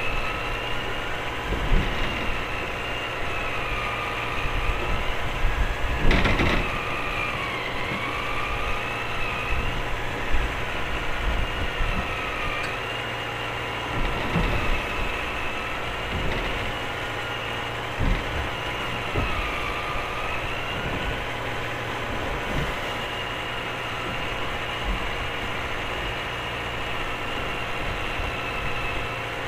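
Fishing boat's engine running steadily, with a whine that dips in pitch and comes back every few seconds. There are scattered knocks on deck, the loudest a sharp thump about six seconds in.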